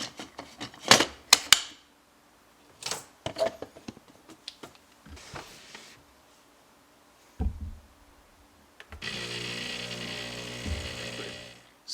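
Clicks and knocks of the grinder's parts being fitted back into place, then, about nine seconds in, the Breville Barista Express's built-in burr grinder motor runs steadily for about three seconds and stops suddenly, a test run after reassembly.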